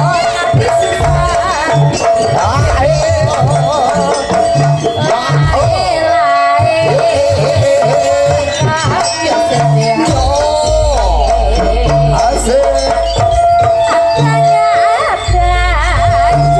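Live Javanese jaranan ensemble music: drums beat a steady rhythm with occasional deep booms, under a wavering high melody line.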